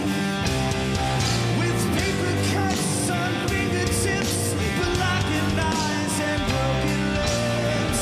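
Rock band playing live: drum kit with cymbal hits, electric guitars and bass, and a bowed cello.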